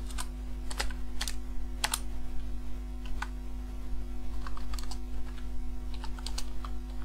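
Typing on a slim low-profile computer keyboard: irregular key clicks in short runs with brief pauses between them.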